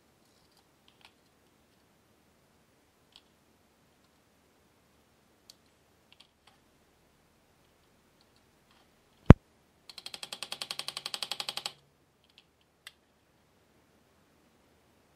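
Small clicks and ticks from an antique Stube dial scale being taken apart with hand tools. A sharp snap comes about nine seconds in, followed by about two seconds of rapid, even ticking.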